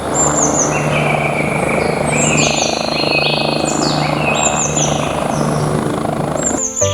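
Helicopter sound, a steady noisy engine-and-rotor drone, with short bird chirps repeating high above it.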